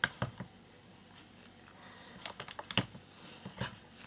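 Light clicks and knocks of a plastic power bank being handled on a cutting mat and a USB plug being pushed into it, in two clusters: one right at the start and one about two to three and a half seconds in.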